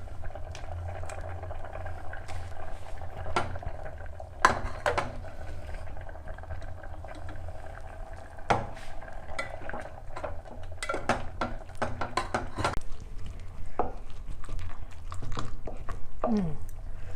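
Kitchen utensils knocking and clinking at irregular intervals, with a quick run of knocks about eleven seconds in, over the steady bubbling of a pot simmering on the stove.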